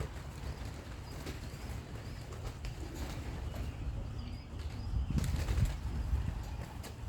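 Young racing pigeons around their loft: wings flapping and clattering, with wind rumbling on the microphone, the flapping louder about five seconds in.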